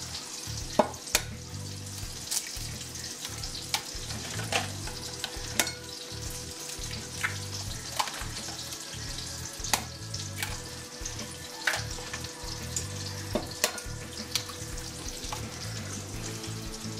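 Bacon and sausage frying in a pan: a steady sizzle with sharp pops and taps scattered every second or two.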